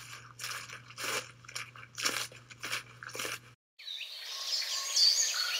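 Rhythmic crunching, about two crunches a second, with a low hum under it. It stops abruptly about three and a half seconds in, and after a brief gap birds start chirping and twittering, growing louder toward the end.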